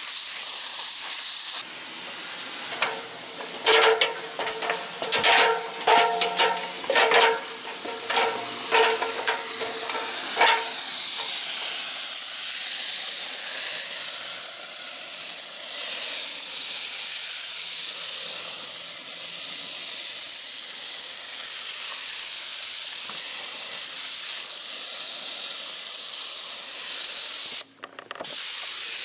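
Paint spray gun hissing steadily as it sprays paint, breaking off for a moment near the end. A run of short ringing knocks sounds between about three and ten seconds in.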